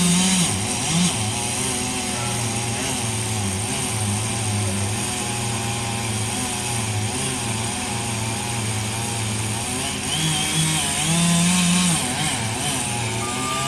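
Tree-felling machinery engine running steadily, revving up briefly at the start and again about eleven seconds in.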